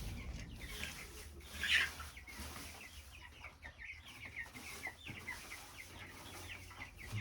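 A flock of young broiler chickens peeping: many short, high, falling calls overlapping throughout, with one louder call about two seconds in.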